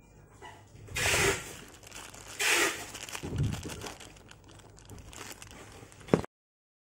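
Clear plastic packaging bags crinkling as they are handled, with two louder rustles about one and two and a half seconds in. A sharp click comes just before the sound cuts off suddenly.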